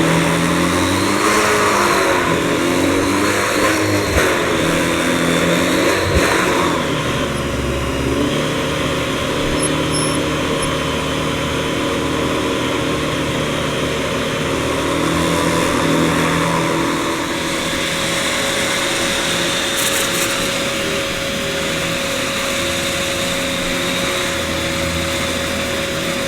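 Vacuum cleaner running continuously, its motor whine wavering up and down in pitch for the first several seconds, then holding steadier.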